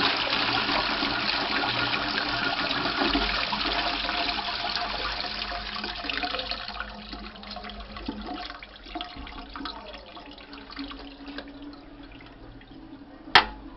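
Toilet flushing: water rushes loudly into the bowl for about six seconds, then fades to a quieter trickle as the cistern refills. Near the end a single sharp clack, as the plastic toilet seat is lowered onto the bowl.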